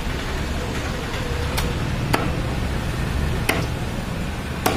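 Butcher's cleaver chopping chicken on a wooden chopping block: four sharp chops at uneven intervals, over a steady low background rumble.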